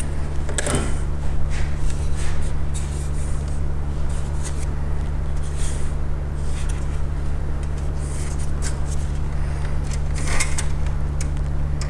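Scattered light clicks and rustles of computer parts being handled, over a steady low hum.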